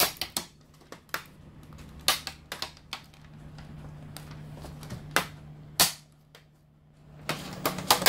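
Plastic snap-fit clips of a Lenovo C40-05 all-in-one's back cover snapping loose as the cover is pried and pulled off: sharp irregular clicks, with a quick cluster near the end as the cover comes free.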